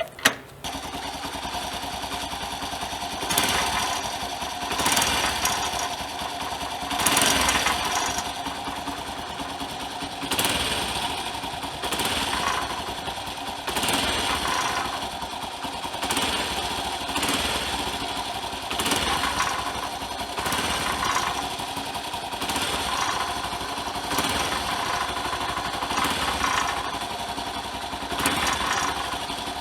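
Honda Super Cub's small single-cylinder engine running steadily, swelling in loudness every one and a half to two seconds. It starts about half a second in, just after a sharp click.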